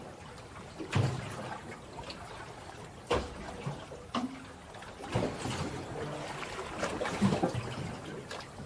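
Small waves lapping against an aluminum boat hull, with a few short slaps and knocks of water on the hull.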